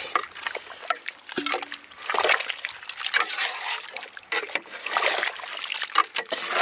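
Steel ladle stirring mutton pieces and yogurt in a metal pot: wet sloshing and squelching, with the ladle repeatedly knocking and scraping against the pot, louder from about two seconds in.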